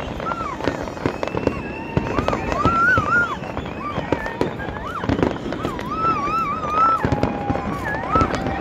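Aerial fireworks display: many shells bursting and crackling in quick, irregular succession. Wavering high-pitched calls from the crowd rise and fall over the bangs, and a steady tone joins in near the end.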